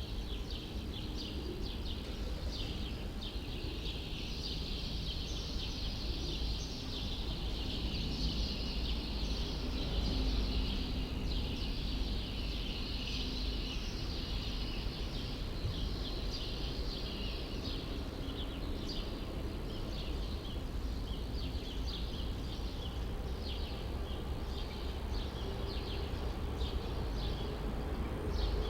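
Many small birds chirping together in a dense, continuous chorus of rapid high chirps, over a steady low rumble of city traffic.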